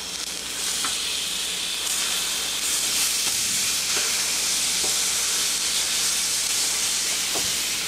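Thick-cut pork chops sizzling in oil on a Blackstone flat-top griddle at medium heat as they are flipped, a steady hiss that grows louder about three seconds in, with a few faint clicks.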